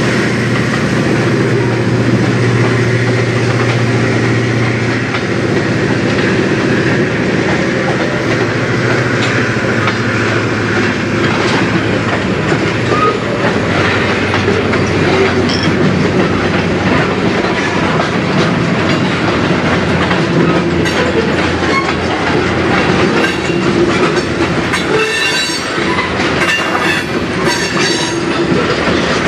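Tank cars of a freight train rolling past, steel wheels clacking over the rail joints. A low locomotive engine drone fades away over the first several seconds, and brief high-pitched wheel squeals come in the last few seconds.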